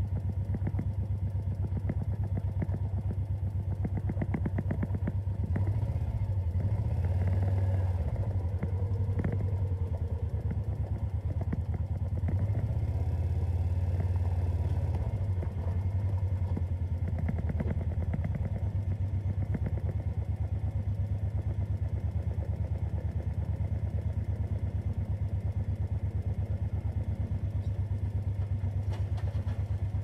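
Diesel engine idling steadily, a low hum with a fast even pulse, swelling slightly twice.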